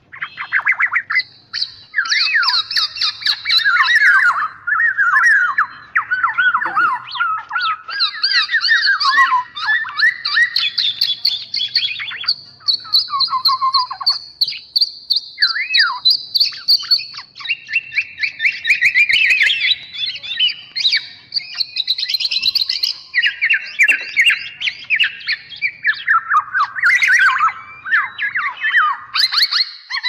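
Black-naped oriole (kepodang emas) calls played as a bird-trapping lure: dense, continuous chattering and quick whistled notes, several overlapping at once, starting abruptly.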